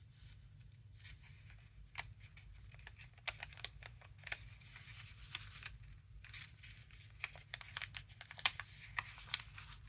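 Paper handling: rustling of card and paper pages with irregular light clicks and taps.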